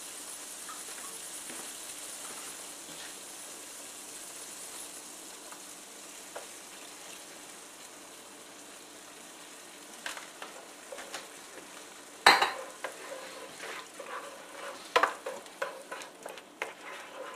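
Onions in butter and broth sizzling in a skillet on the stove, a steady hiss. From about ten seconds in, a spoon stirs and scrapes against the pan, with a sharp knock a couple of seconds later and several more clacks near the end.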